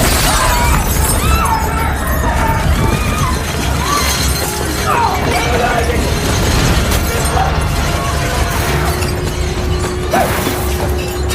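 Earthquake sound effects from a film soundtrack: a deep continuous rumble with glass shattering and crashes at the start and again about ten seconds in, scattered cries, and orchestral score music underneath.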